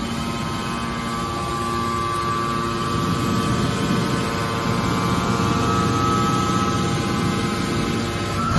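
Hydraulic scrap-metal baler's power unit running: a steady machine hum with a pump whine, the whine growing stronger in the second half and rising slightly in pitch just before the end.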